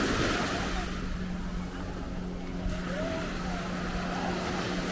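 Surf washing onto a sandy beach, swelling near the start and again near the end, with a steady low drone running underneath.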